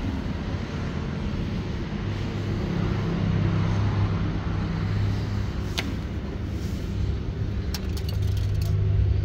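Car engine idling with a steady low hum, with a few light clicks about six seconds in and again near the end.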